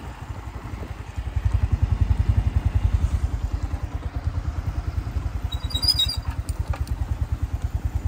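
Motorcycle engine running at low speed with a steady, rapid low putter that grows louder about a second in. A brief high squeak and a few clicks come near the six-second mark.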